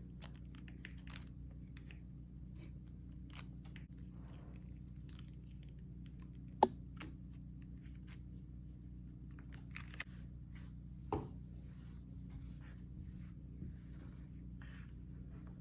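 Hands picking and tearing worn fabric off a headphone ear pad: faint scratching and tearing, with two sharp clicks, over a steady low hum.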